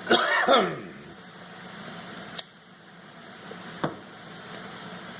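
A short cough from a man in the first second. Two sharp clicks follow, over a steady background hiss.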